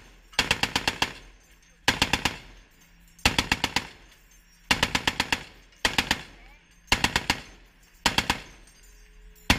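Ship-mounted M2 .50-calibre heavy machine gun firing short bursts of about five or six rounds each, seven bursts a little over a second apart.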